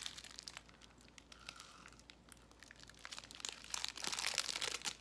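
Soft chewing of a Rice Krispie treat, then the foil-lined wrapper crinkling in the hand in a busy run of crackles for about a second near the end.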